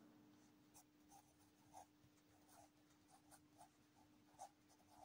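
Faint scratching of a pencil writing on a paper textbook page, in short irregular strokes.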